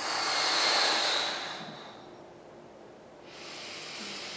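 A person's long audible exhale through the mouth, about two seconds, breathed out while the arms spread into a chest stretch. A quieter breath follows near the end.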